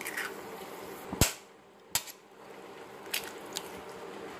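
Eggshells cracked against the rim of a frying pan: a few short, sharp cracks, the loudest a little over a second in, over a faint steady hiss.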